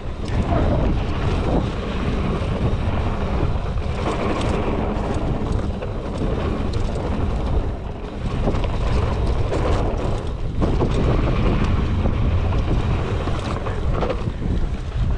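Wind rushing over the microphone of a mountain bike rolling fast down a packed-dirt trail, with the steady rumble of the tyres and frequent short clicks and knocks from the bike over the ground.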